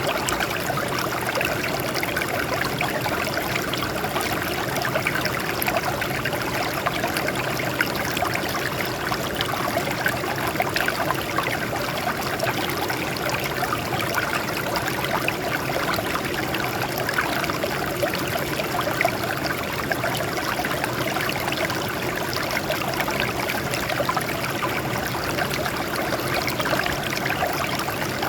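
Water flowing and trickling over rocks in a steady, unbroken splashing stream.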